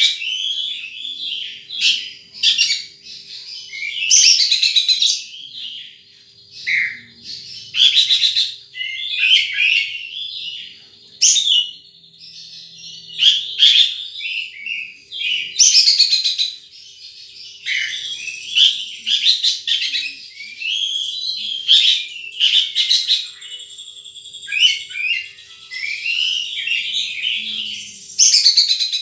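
Wild sunbird giving high, thin chirps and quick twittering trills in repeated short phrases, with brief pauses between them. A faint steady hum runs underneath.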